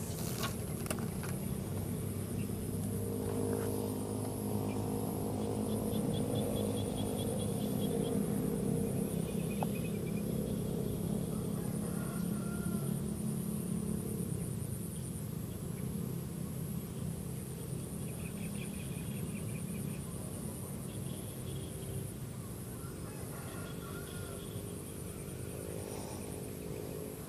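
A steady low engine hum that swells about a third of the way in and slowly fades, under a constant high, pulsing insect buzz and a few short chirps.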